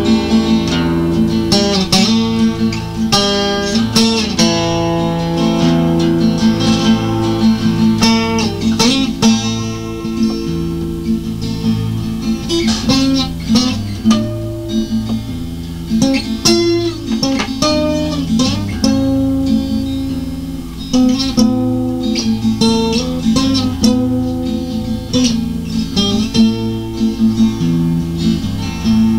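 Acoustic guitar music, strummed and plucked, with a steady beat of chords and picked notes.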